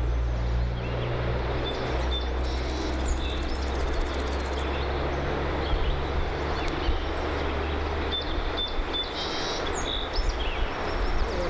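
Steady rush of flowing river water, with a low steady rumble underneath and a few short bird chirps in the middle.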